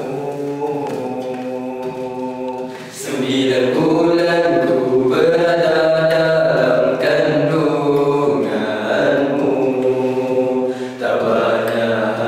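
Male vocal group singing a nasyid a cappella, several voices holding sustained notes in close harmony. The sound grows fuller and louder about three seconds in.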